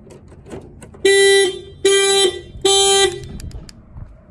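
Car horn sounding three short honks, each about half a second long and evenly spaced.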